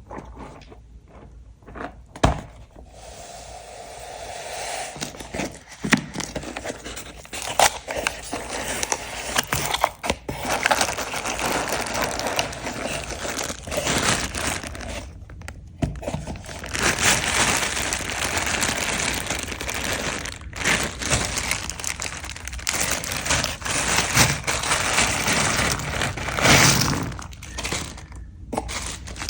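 Typing on a mechanical keyboard fitted with Everglide Sea Salt tactile switches. A few separate keystrokes come first, then fast, dense typing from about four seconds in.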